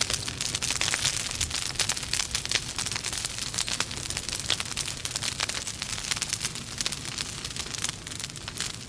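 Wood fire burning in a fireplace, logs crackling and popping with many sharp snaps over a steady hiss.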